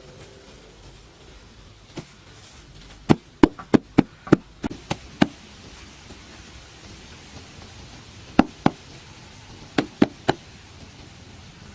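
Sharp, hard knocks in irregular bursts: a single one, then a quick run of about eight over two seconds, then a pair and later a group of three.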